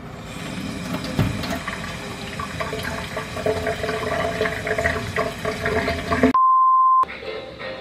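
Kitchen tap running into a sink while ceramic plates and a bowl are rinsed under it, with small clinks of dishware. About six seconds in, this cuts off and a steady high beep sounds alone for about half a second.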